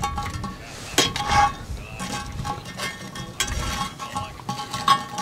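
Steel tongs clinking and scraping on a cast-iron Dutch oven lid as charcoal briquettes are nudged into place, with a sharp clink about a second in.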